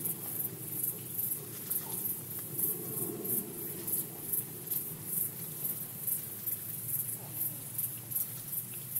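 Field recording from the red deer rut: high-pitched insect chirping pulses a few times a second over a low rumble, with faint low calling around three seconds in, typical of a distant rutting red deer stag.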